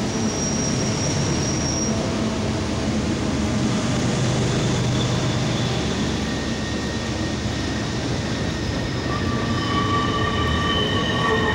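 Freight train passing close by. The trailing diesel locomotives run past early on, then double-stack container well cars roll by with steady wheel-on-rail noise. Thin, high wheel squeals come and go and grow stronger near the end.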